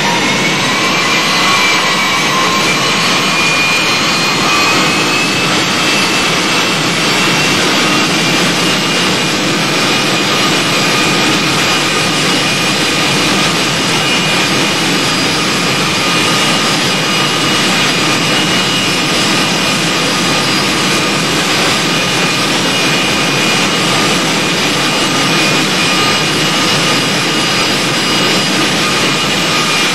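Westinghouse jet engine mounted in a school bus, running loud and steady: a rushing noise with several high whining tones. The whine dips and rises slightly in the first couple of seconds, then holds steady.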